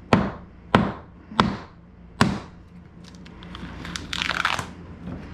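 Claw hammer striking a wooden mounting block on a wall, four sharp blows in just over two seconds. About four seconds in comes a crackling, tearing sound as the block breaks loose from the wall, where paint had stuck it.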